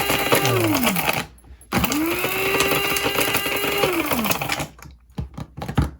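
Small electric mixer grinder (mixie) grinding dried ginger slices into powder in pulses. The motor's steady whine winds down about a second in, starts again and runs steadily for a couple of seconds, then winds down. A few clicks and knocks come near the end.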